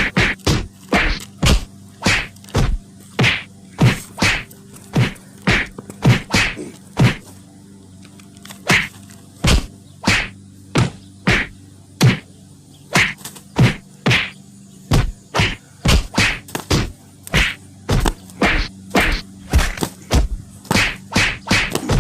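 A long series of sharp whacks and slaps at an uneven pace, sometimes several a second, with a short lull about halfway through.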